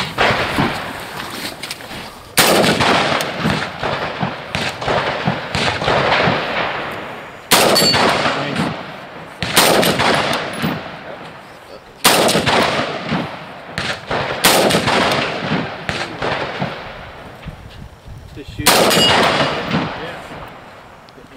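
Rifle shots, about six loud reports a few seconds apart, each followed by a long rolling echo that dies away slowly.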